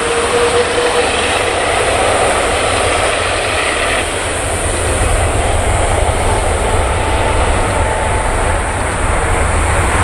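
Airbus A380-841's four Rolls-Royce Trent 900 jet engines running on the runway, a steady jet noise with a whine that fades about a second in. A deeper rumble builds from about four seconds in as thrust increases.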